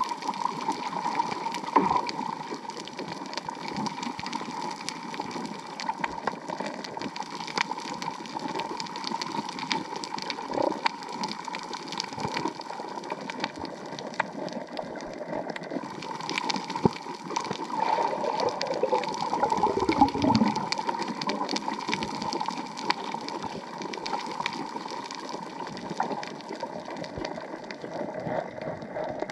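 Underwater reef ambience picked up by the camera: a steady hiss crowded with small clicks and crackles, swelling into a louder, gurgling rush with a falling pitch about twenty seconds in.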